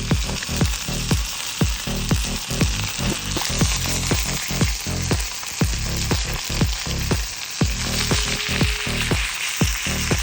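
Music with a steady beat and heavy bass, over a continuous sizzling hiss.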